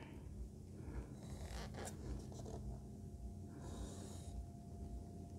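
Faint scraping of a putty knife spreading wet construction adhesive along foam board, in a few short strokes about two seconds in and again near four seconds.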